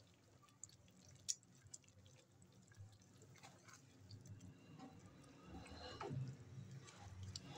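A ladle stirs thin, watery cooked black gram dal in a metal pot as the fried masala is mixed in. The liquid sloshes faintly, with a few light clicks of the ladle against the pot, and grows a little louder in the second half.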